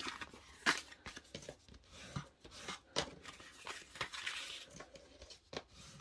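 Cardstock panels being handled on a tabletop: a few light taps of card against the table and a soft rustle of paper rubbing and sliding.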